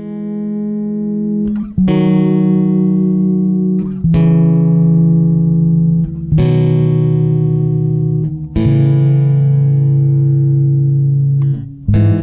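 Background music: slow, sustained guitar chords that fade in, with a new chord struck about every two seconds and a few quick strokes near the end.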